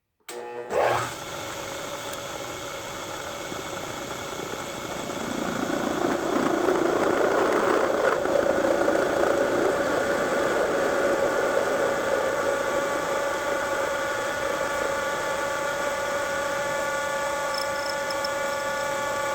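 Milling machine drilling 416 stainless steel with an 11/16-inch drill bit: a steady machine whine made of several even tones, which grows louder about five seconds in and stays there.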